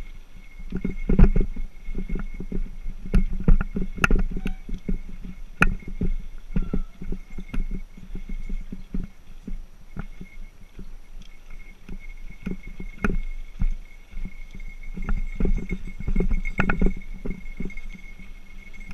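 Mountain bike ridden over a rough dirt singletrack: tyres rolling on dirt and gravel under a low rumble, with irregular knocks and rattles as the bike bounces over the ground.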